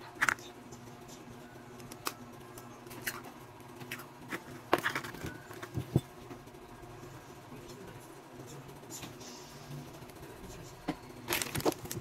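Wire balloon whisk stirring eggs into dry flour in a stainless-steel bowl, with scattered sharp clicks of metal against metal as it knocks the bowl, a quick cluster of them near the end.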